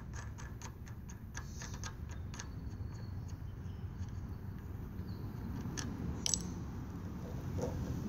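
Small clicks and light rattles of a Honda GX200's air cleaner cover and filter being handled and taken off by hand. The clicks come thick and quick in the first couple of seconds, with a few sharper ones about six seconds in, over a low steady rumble.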